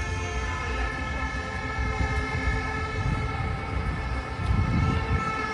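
A siren held on a steady pitch, several tones at once, over a low street rumble that swells near the end.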